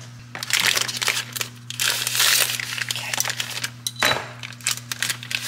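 Plastic cookie-dough packaging crinkling and rustling in irregular bursts as it is handled and torn open.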